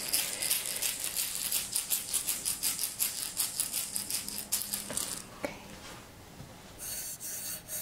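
A handheld rattle shaken in quick, even strokes, stopping about five seconds in.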